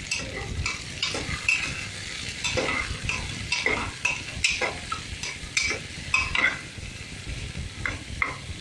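Steel ladle stirring onion pieces in hot oil in a pressure cooker, scraping and clinking against the pot over a steady sizzle. The strokes come thick and fast, then thin out after about six and a half seconds to a couple of light clicks near the end.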